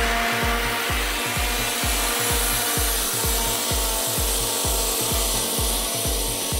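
Scag zero-turn mower running steadily under load as it cuts grass, growing fainter as it drives away. A steady bass beat of background music, about three beats a second, runs underneath.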